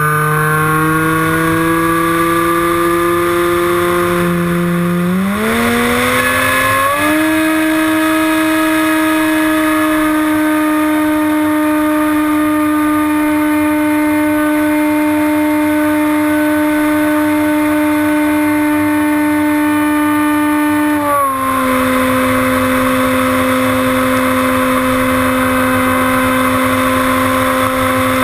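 HobbyKing Bixler RC glider's electric motor and pusher propeller droning in flight, heard from a camera on the airframe with wind rush over it. The pitch rises as the throttle is opened about five seconds in, holds steady, then drops slightly a little after twenty seconds.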